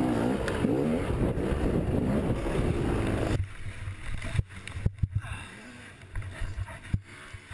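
Dirt-bike engine revving up and down, heard from the rider's helmet camera. About three and a half seconds in it cuts off abruptly to a quieter scene with a cluster of sharp knocks and thuds as the bike goes down, and another knock near the end.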